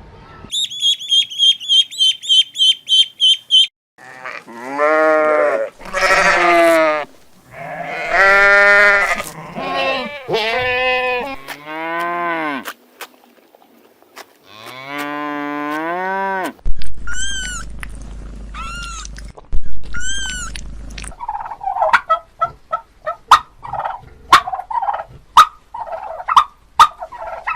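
A run of different farm animal calls: a quick string of about a dozen high chirps, then several long drawn-out calls that rise and fall in pitch, then six short high calls about once a second, and finally a fast run of short chattering calls.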